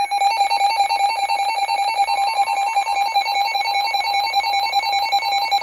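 Weather alert radio sounding its alarm for an incoming warning: a loud, shrill electronic beeping pulsing rapidly and evenly. A faint steady tone joins about two seconds in.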